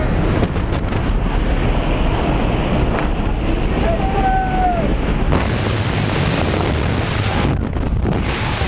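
Loud aircraft engine and wind noise at the open jump door of a skydiving plane, with a brief yell about four seconds in. About five seconds in, the noise turns into a much brighter rushing hiss as the tandem pair exits the plane: freefall wind blasting the camera microphone.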